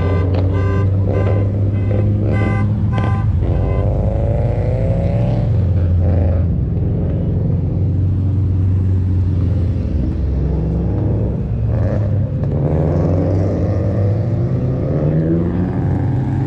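Car engines running with a steady low rumble, revving up and down as the cars pull away and move past. Electronic music plays over the first few seconds.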